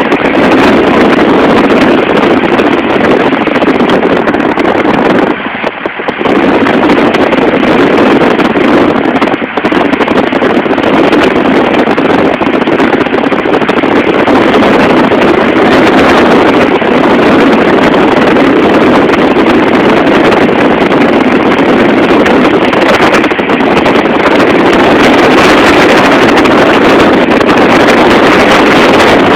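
Loud, steady rush of wind and road noise on a phone's microphone in a moving car, dipping briefly about six seconds in and again just before ten seconds.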